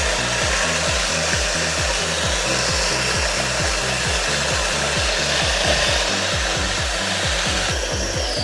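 An electric-motor-driven machine running with a steady whirring noise under background music with a pulsing bass line. The machine noise cuts off near the end.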